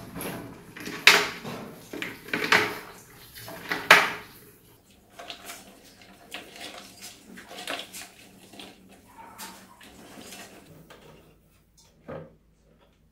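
Mice scrabbling over a cut plastic water-bottle trap, with loud clattering knocks about one, two and a half and four seconds in, then lighter irregular tapping and scratching that fades out. One soft knock near the end.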